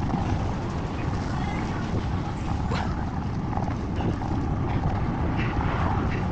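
Wind rumbling on the microphone of a camera carried on a moving bicycle, a steady low noise over wet road, with a few faint light ticks.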